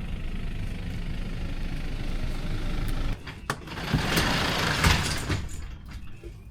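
Garage door running open with a steady rumble that stops suddenly about three seconds in, followed by a sharp click and a second stretch of rattling noise.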